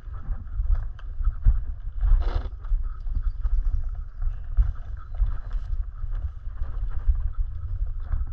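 Mountain bike riding down a dirt singletrack: wind buffeting the microphone under tyre noise, with the bike rattling and clattering irregularly over bumps and roots, and a brief scuffing burst about two seconds in.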